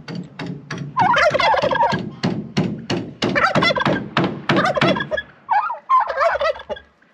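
Turkey gobbling in three rapid warbling bursts, over a run of sharp knocks and clicks.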